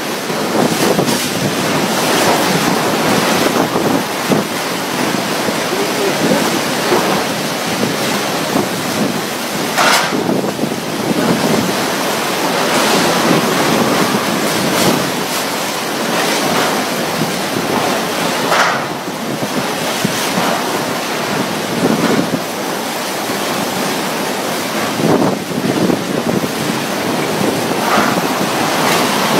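Tropical storm wind rushing steadily and buffeting the microphone, with several stronger gusts standing out briefly.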